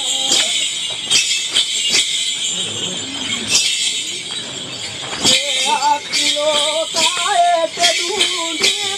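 Voices singing a chant-like melody over a constant high jingling and sharp, roughly rhythmic stamps or clicks, the singing coming in about halfway through.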